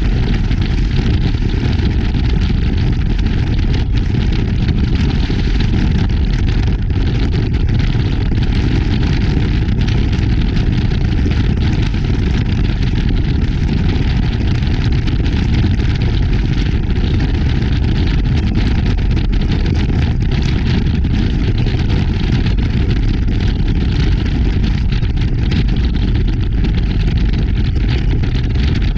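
Powerboat running steadily at speed across choppy water: an engine drone under a heavy, even rumble of wind on the bow-mounted camera's microphone.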